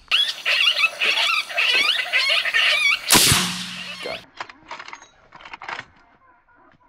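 A group of coyotes yipping and howling, many wavering high voices overlapping, cut short by one rifle shot about three seconds in, the loudest sound, with a brief echo. A few light clicks follow.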